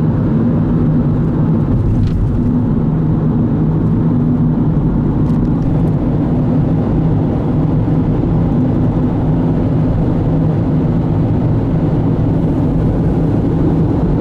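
Car driving, heard from inside the cabin: a steady low drone of engine and road noise with an even hum, unchanging throughout.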